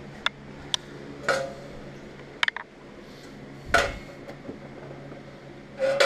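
Sheet-metal duct pieces clinking and knocking as they are handled and set down: a handful of sharp metallic clinks, spaced irregularly, with one heavier knock just before the fourth second.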